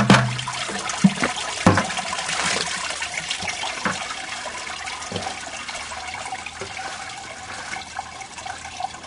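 Fermented Petite Sirah grape must and juice pouring and trickling through a cider press's mesh bag as a bucket is emptied into the basket, with a few knocks in the first few seconds. The flow of free-run wine slowly tapers off.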